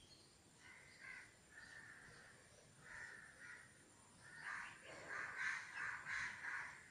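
Crows cawing: a few short separate caws, then a louder run of repeated caws in the second half.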